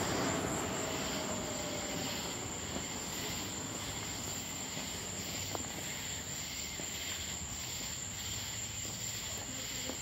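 Night chorus of crickets and cicadas: a steady high-pitched trill with a slower, regular swelling of insect song underneath.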